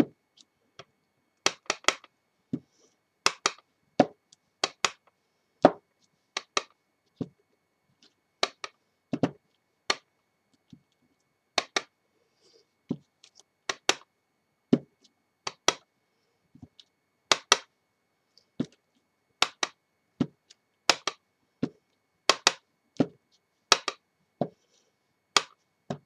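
Clear acrylic stamp block being inked on a red ink pad and pressed onto card on a tabletop: dozens of sharp clicks and taps at uneven intervals, often in quick pairs.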